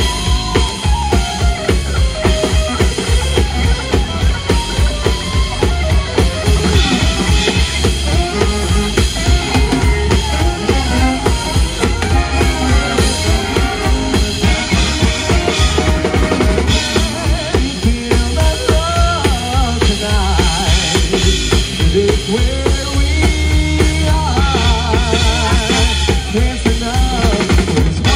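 Live band playing an instrumental passage: a drum kit keeps a busy steady beat with snare and rimshot hits under wavering melodic lead lines.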